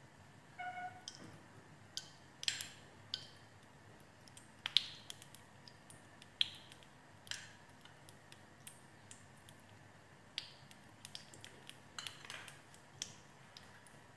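A spoon clinks once against a nonstick paniyaram pan about a second in, with a short ring. Then sparse, irregular sharp ticks and crackles come from the oil in its cups as it heats.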